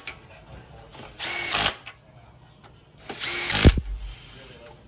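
A handheld power tool whirs in two short bursts, spinning nuts down onto the cylinder head studs of a Hemi engine. There is a low knock about three and a half seconds in.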